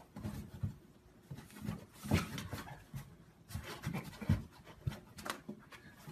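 Cat's paws thumping and scratching on cardboard as it swats at a white object poking up through a hole: an irregular run of soft knocks and scrapes.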